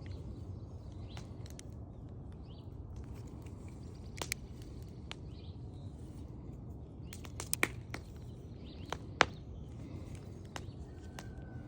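Leatherman multi-tool being worked by hand: a handful of sharp clicks as its parts are moved, the loudest about four, seven and a half and nine seconds in. Faint bird chirps and a low steady rumble lie under them.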